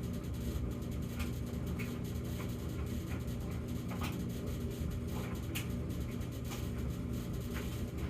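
Samsung gas dryer running normally, without its intermittent humming fault: a steady low drone from the drum and motor with scattered light clicks.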